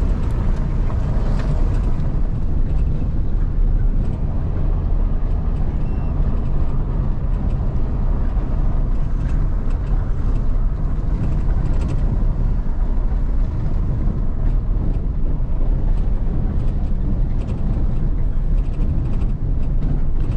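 Steady low rumble of engine and tyres on a dirt road, heard from inside a moving vehicle's cab, with faint scattered rattles and clicks.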